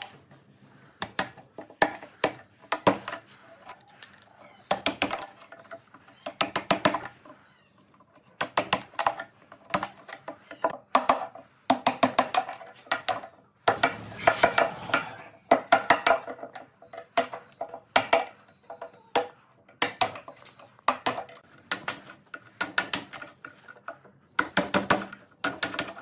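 Steel chisel and pick scraping and prying rotten wood out of cracks and hollows in a hardwood slab: short bursts of rapid scratchy, clicking strokes, some with a brief squeak, with pauses between them.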